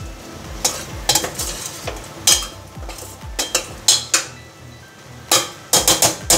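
A metal spoon stirring goat trotters in thick masala inside a stainless steel pressure cooker, with irregular sharp clinks and scrapes against the pot, and the masala frying underneath.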